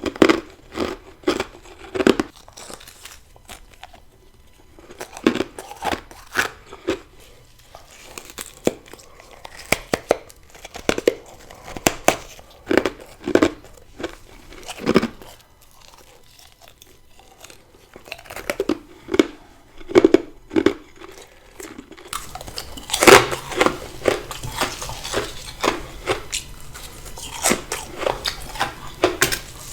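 Ice being bitten and chewed close to the microphone: sharp crunches in quick clusters. After about twenty seconds a louder, denser run of crunches starts over a hissier background.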